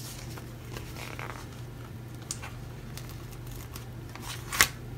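Light rustling and a few small ticks of paper and sticker sheets being handled, with one short, sharp crinkle near the end, over a faint steady hum.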